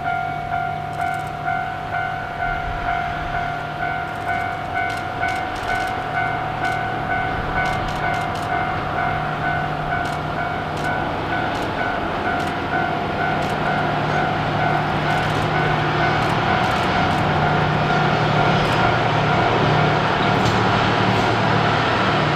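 Railway level-crossing warning bell ringing steadily at about one and a half strikes a second as a train approaches. The train's running noise and a low engine drone grow louder through the second half and drown out the bell.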